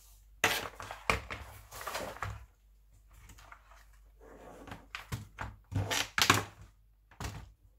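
Handling noises: a plastic keyboard and its packaging being moved about and set down on a wooden desk, giving a string of short knocks and clatters with some rustling in between.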